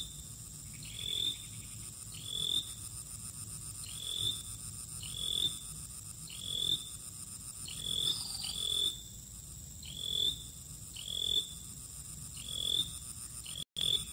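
An animal calling over and over from the riverbank, a short note that rises in pitch, repeated about every second and a half.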